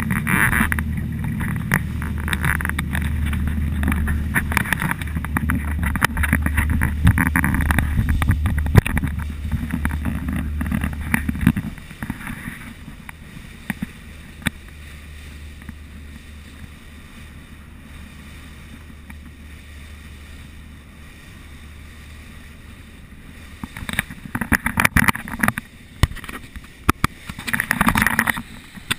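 Motor yacht under way: a steady low engine drone under rushing water and wind on the microphone. About twelve seconds in, the low drone drops away and the sound becomes much quieter. Near the end come several irregular bursts of wind and knocks.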